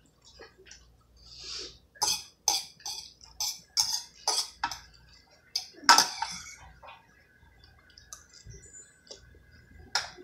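Metal fork clinking and scraping against a stainless steel pot while twirling spaghetti: a quick string of sharp clicks and knocks, the loudest about six seconds in, and one more near the end.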